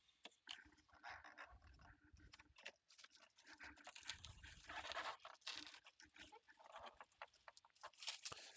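Faint handling of packaging: irregular rustling, crinkling and light clicks and knocks, a little louder about four seconds in, as the autographed helmet box is being opened.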